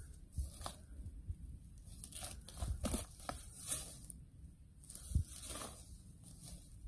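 Dry fallen leaves and twigs crackling and rustling underfoot in scattered, irregular bursts.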